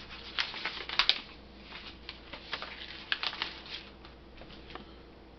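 Irregular light clicks and rustling of packaging being handled, in small clusters that thin out near the end.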